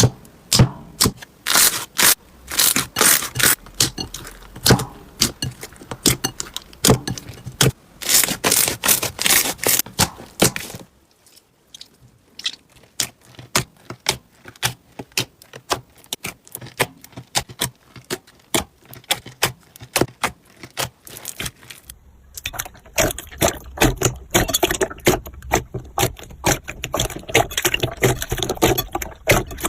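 Slime being squeezed and pressed by hands: dense runs of crackling, popping clicks, sparser and quieter through the middle stretch.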